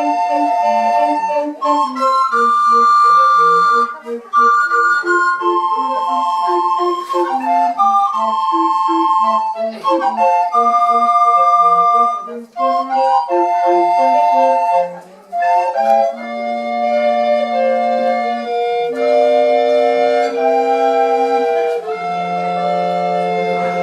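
A recorder ensemble playing in several parts: a melody over short, separate lower notes, turning to long held chords about sixteen seconds in.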